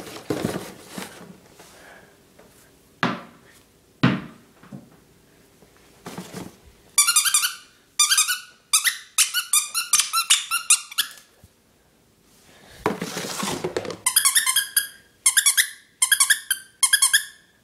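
Squeaky dog toy squeezed by hand in quick runs of high squeaks, starting about seven seconds in and coming in several bursts, after a few scuffs and knocks.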